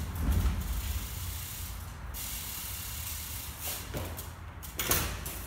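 BMX bike riding on a gritty concrete floor: tyres rolling with a low rumble, then a few sharp knocks between about four and five seconds in as the wheels come down on the floor.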